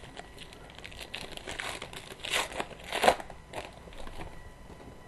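Hockey trading cards being handled and flipped through: a run of short, scattered paper rustles, with two louder ones a little past the middle.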